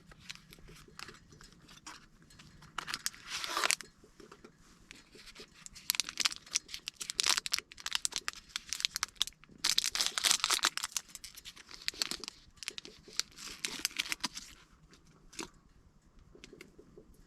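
Irregular rustling and crinkling, as of material being handled, coming in clusters of crackles with the busiest stretch from about six to fifteen seconds in.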